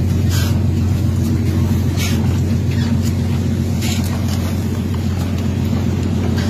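Steady low machinery drone from a squid-jigging ship's deck, its jigging-machine reels turning as squid are hauled in, with short hissing splashes every second or two.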